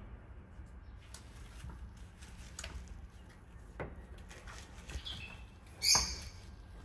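Two kittens play-fighting on artificial grass: soft scattered scuffs and rustles of paws and bodies, with a brief loud high-pitched squeak about six seconds in.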